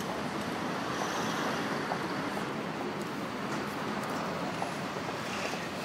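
Steady city street noise of vehicle traffic and running engines, with no siren.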